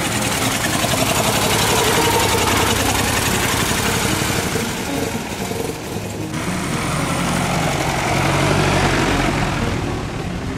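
Veteran car engines running, the sound swelling about two seconds in and again about nine seconds in, with an abrupt change about six seconds in.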